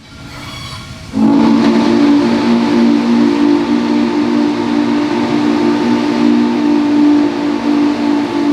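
Steam locomotive chime whistle blowing one long blast: a low chord of several notes sounding together, starting about a second in after a fainter, higher tone.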